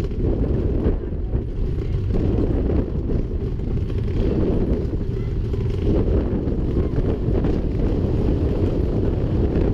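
Slinky Dog Dash steel roller coaster train rumbling along its track at speed, with wind buffeting the ride-mounted microphone in a steady deep rush.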